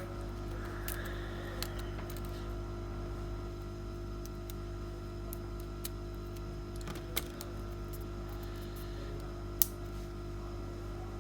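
A few sharp, isolated clicks from small parts and tools being handled while the tablet is reassembled, the loudest near the end, over a steady electrical hum.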